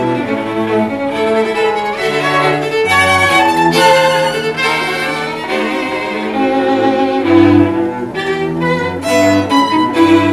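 Background music of bowed strings, violin and cello, playing a slow melody of held notes.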